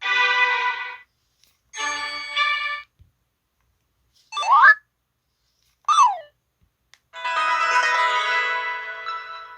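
Built-in sound effects of an LG-SH130 mobile phone played one after another: two short electronic chimes, a quick rising sweep, a quick falling sweep, then a longer chord-like tone that fades away.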